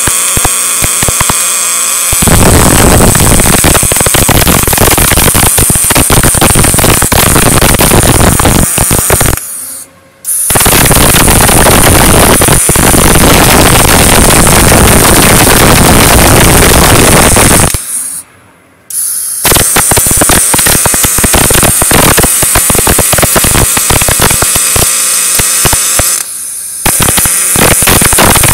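Arc of a CNC automatic MIG welding machine crackling loudly and steadily as the torch runs a straight seam, cutting out twice for about a second before the arc strikes again.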